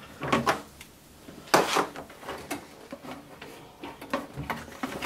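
A plastic lawnmower engine cover being worked loose by hand: scattered clicks and knocks of plastic, the loudest about a second and a half in.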